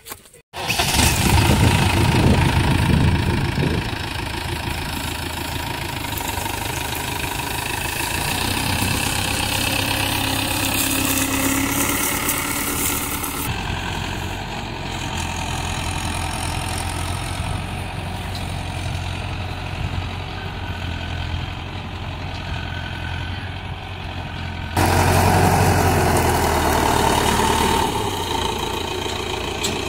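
Mahindra Yuvo tractor's diesel engine running steadily, heard close by in several clips joined by hard cuts. It is louder for the first few seconds and again for a few seconds near the end.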